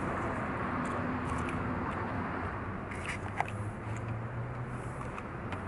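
A person chewing a mouthful of crepe, with a couple of light clicks from a plastic fork about three seconds in, over a steady hum of traffic.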